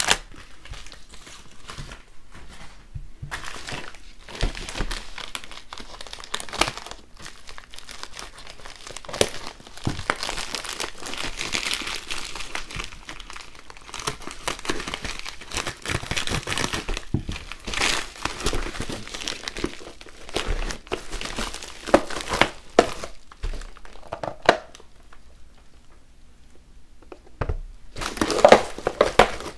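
Plastic poly mailer bag crinkling and rustling in an irregular way as it is handled and opened, with scattered clicks. Near the end come a few louder sharp clacks as a hard clear plastic box is handled.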